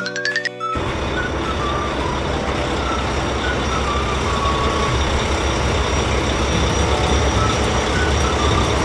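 Heavy truck engine sound effect in a cartoon, a steady rumble that starts under a second in, after a short rising musical glide, with faint music over it.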